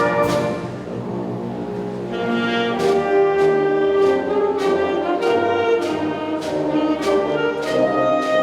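Wind orchestra playing: a loud brass chord with a percussion hit at the start dies away within about a second to softer held notes, then the band builds again from about two seconds in, with brass sustaining chords over repeated percussion strikes.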